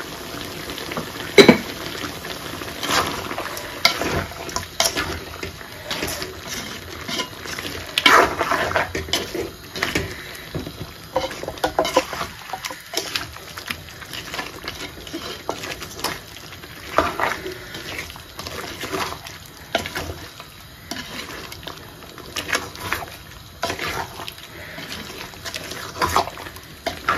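A wooden spoon stirring chicken pieces and masala in a large metal pot: irregular wet scraping and squelching, with sharp knocks of the spoon against the pot. The loudest knock comes about a second and a half in.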